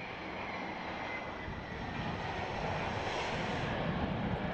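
Twin-engine Airbus A300 freighter's turbofans on the runway just after touchdown. A whine slides down in pitch over the first couple of seconds, and a deep rumble swells from about a second and a half in.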